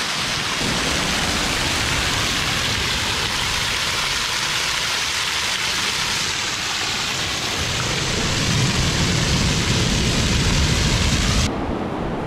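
Steady rush of water at the shore, a dense hiss with a low rumble that swells twice; the hiss drops abruptly near the end.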